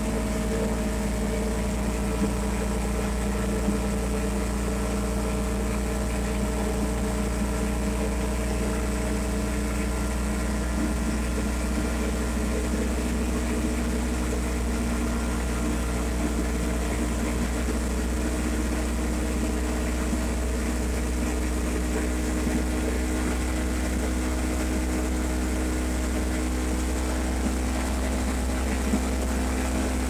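Side-by-side ATV engine running steadily as the machine cruises along a paved road, with a strong low drone and an even engine note heard from the driver's seat.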